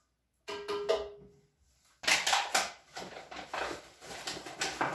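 Paper flour bag crinkling and rustling as it is handled and scooped from while ingredients are measured into a bread machine, in a quick run of crackly rustles from about two seconds in. Before that, a brief steady tone with a few soft clatters.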